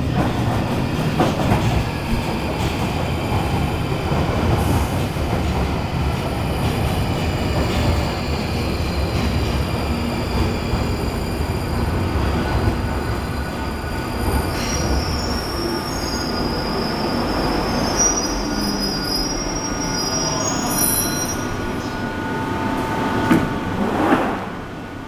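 London Underground tube train coming out of the tunnel into the platform and braking to a stop, a dense rumble from wheels and motors. Midway through, a high-pitched wheel-and-brake squeal comes in and holds for several seconds as the train slows.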